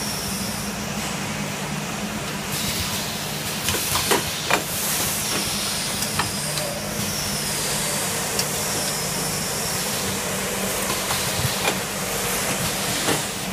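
Automatic tissue paper band-saw cutting and packing machinery running: a steady hum with a high hiss over it, broken by sharp mechanical clacks a few times.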